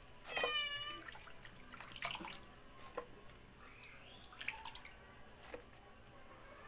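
A cat meows once, briefly, just after the start. Then come faint scattered clicks, knocks and drips as freshly washed, cut vegetables are moved into a bowl.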